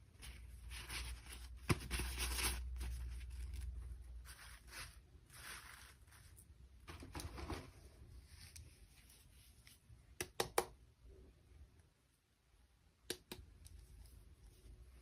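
Toy packaging being handled and torn open: several rustling, tearing swishes, the loudest early on, then a few sharp clicks about ten seconds in and again near the end.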